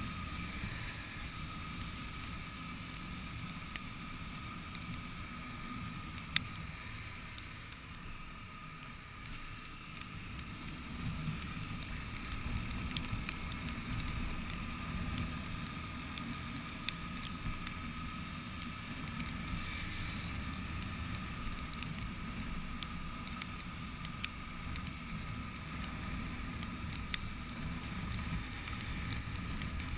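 Motorcycle engine running steadily at cruising speed, with wind and road noise, as heard from the rider's camera. A single sharp click about six seconds in.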